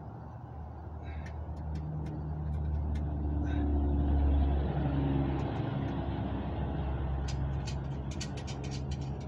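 A motor vehicle's engine running, growing louder to a peak about halfway through and then holding steady, its pitch shifting a little. Scattered light clicks and ticks come in about a second in and again near the end.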